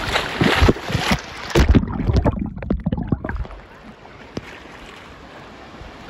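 Wind buffeting the microphone over rushing sea water, loud and gusty for the first few seconds, then dying down to a quieter steady hiss.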